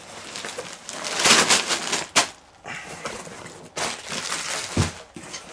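Plastic bags and bubble wrap crinkling and rustling with cardboard box flaps being handled as bags of LEGO pieces are lifted out, loudest about a second in, with a sharp click and a dull thump near the end.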